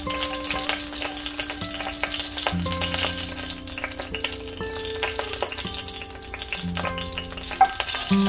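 Mustard seeds sizzling and crackling in hot oil in a cast-iron pot, stirred with a wooden spoon. Near the end, curry leaves go into the oil and spit sharply.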